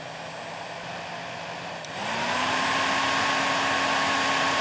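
Hair dryer running; about two seconds in it is switched to a higher setting, and its hum steps up in pitch and gets louder.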